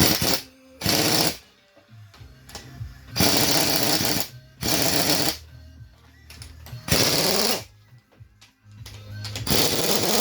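Impact wrench rattling in about six short bursts of half a second to a second each, spinning nuts on or off the car's suspension, over background music.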